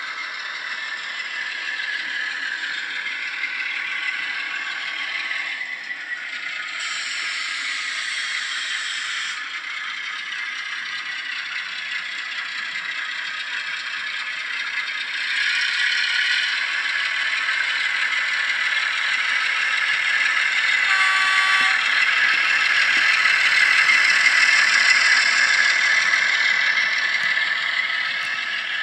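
Model Class 11 diesel shunter running with an ESU LokSound decoder playing a Class 08 engine sound through its small speaker, mixed with the rattle and clatter of its wheels and a rake of model wagons on the track. The sound grows louder as the train draws near, and a short pitched note sounds about two-thirds of the way through.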